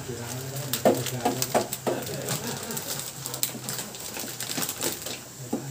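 Metal spoon clinking and scraping against a stainless-steel pot while batter is stirred, in quick irregular knocks, over a low steady hum.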